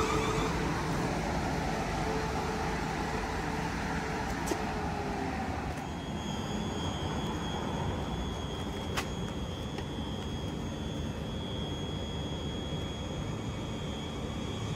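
South Western Railway electric multiple-unit train moving slowly along the platform, with a steady rumble of wheels and running gear. A thin, steady high whine comes in about six seconds in.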